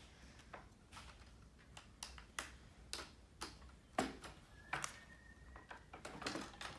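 Light, irregular clicks and taps of LEGO plastic pieces being handled, about two a second.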